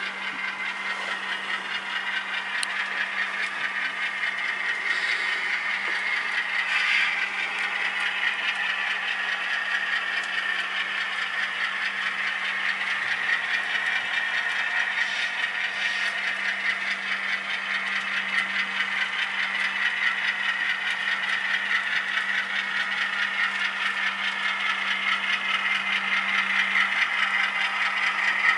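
Model train rolling along the track: a steady rattle of wheels on rail with a high whine from the locomotive, over a steady low hum, growing a little louder near the end.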